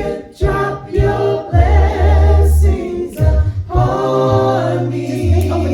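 A cappella praise team singing in close harmony, with deep bass voices holding low notes beneath the chords, which change about every second.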